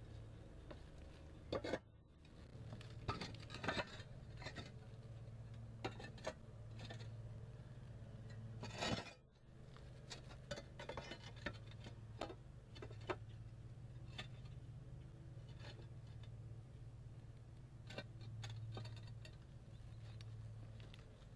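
Scattered clacks and knocks of concrete roof tiles being handled and set down, with footsteps on the tiles, over a faint steady low hum.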